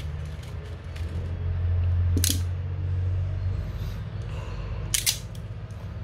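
Small parts being handled from a plastic organiser box of crimp terminals: a sharp click about two seconds in and a quick double click near five seconds, over a steady low hum.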